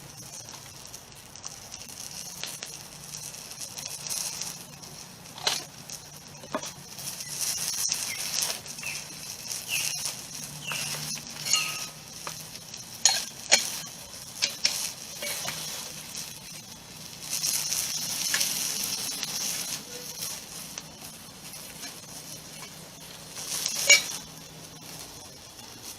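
Burger patty sizzling steadily in a mess-kit frying pan over a campfire, with scattered pops and crackles and one sharp tap near the end.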